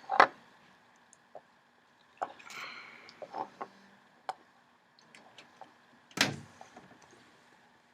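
Small handling clicks and knocks of hands working with a breadboard circuit and its battery connector, with a louder knock about six seconds in.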